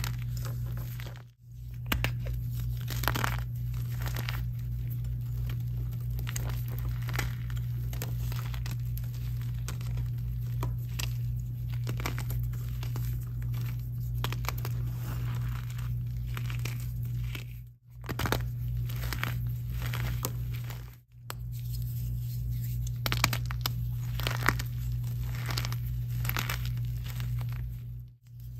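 Gym chalk blocks crunching and crumbling as hands squeeze and break them in loose chalk powder: a dense, irregular run of crisp crunches over a steady low hum. The sound stops briefly four times.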